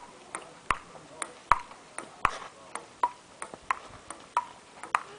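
Table tennis rally: a ping-pong ball struck back and forth between bats and bouncing on a concrete table, a quick run of about three sharp clicks a second, each with a short ringing ping.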